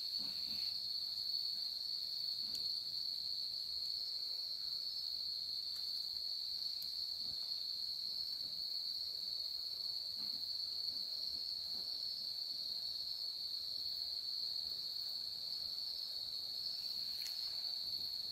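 A steady, high-pitched insect chorus hums on without a break, with faint soft scuffs now and then underneath.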